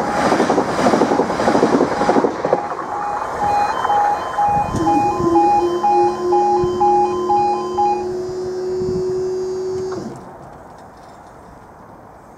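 Class 395 high-speed electric train rushing past for the first two seconds, while two E2S level crossing alarms sound out of step with each other in alternating two-tone pulses; the alarms stop about eight seconds in. From about five seconds in, the half-barrier mechanism hums steadily as the barriers rise, then stops about ten seconds in.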